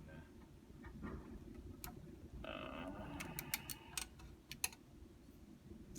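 A few faint sharp clicks and taps from the serger being handled as threading begins, over a low steady room hum.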